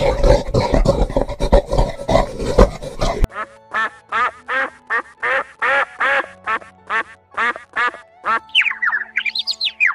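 A grey domestic goose honking, about a dozen short honks in a row over five seconds. Before it, a dense burst of noisy animal calls cuts off suddenly; near the end a common blackbird begins whistling its song.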